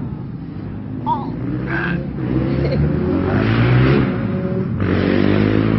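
A small child making a raspy, buzzing noise with the voice, meant as a duck sound: a short call, then two long drawn-out buzzes of about a second or more each.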